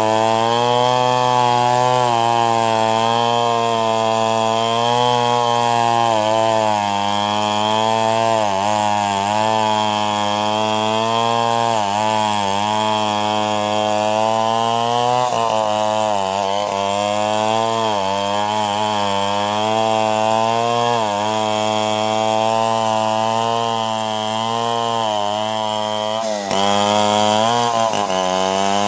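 Chainsaw running continuously under load while ripping a log into planks. Its engine note sags and recovers every second or two as it bites into the wood, and rises briefly near the end.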